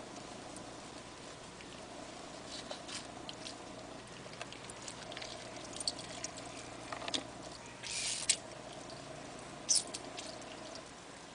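Small wet clicks and squishes as a peeled grapefruit is cut from its membranes with a knife, then the leftover membrane and pulp are squeezed by hand and juice drips and trickles. A short hissy splash comes about eight seconds in and a sharp one near the end. A faint steady hum runs underneath.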